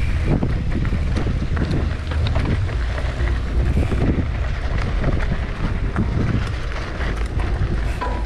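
Wind buffeting an action camera's microphone during a mountain-bike ride, as a steady low rumble, with frequent small rattles and knocks from the bike and trail.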